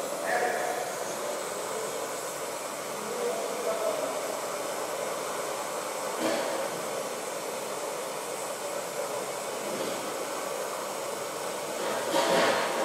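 TIG welding arc on stainless steel at about 60 amps, a steady hiss. A few louder bursts come near the end.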